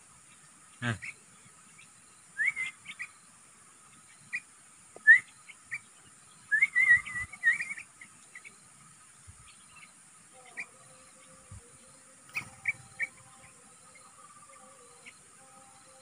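Young trucukan (yellow-vented bulbul) giving short, rising chirps in scattered bursts, with a quick trill of chirps around the middle and single notes later. There is a brief thump about a second in.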